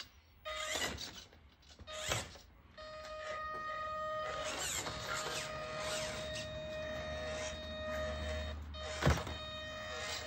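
A small 1/18-scale RC crawler's electric motor and gears whining at a steady pitch as it crawls over a wooden slat bridge, the whine cutting in and out with the throttle. Three sharp knocks of the tyres and chassis on the slats, about one and two seconds in and near the end.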